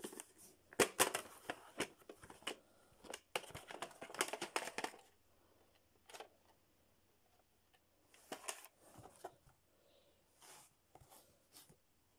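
Plastic VHS clamshell case handled and opened and the cassette taken out: a busy run of clicks, knocks and rustles in the first five seconds, then a few shorter bursts of handling noise.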